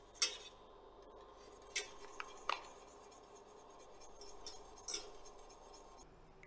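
Wire whisk scraping and clinking against the inside of a stainless steel saucepan as raspberry fruit paste is stirred while sugar is added: about six short, faint scrapes spaced irregularly over a few seconds.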